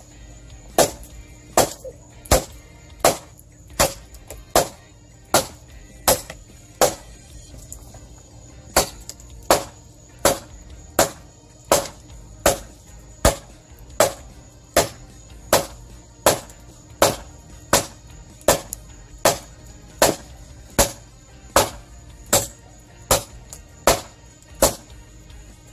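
Small hatchet chopping one-handed into a log, a steady run of sharp blows about one every three-quarters of a second with a short pause about a third of the way through, the blade biting into the wood.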